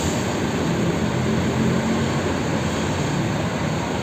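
Steady low drone of a large diesel bus engine running, with the even rumble of a busy bus terminal around it.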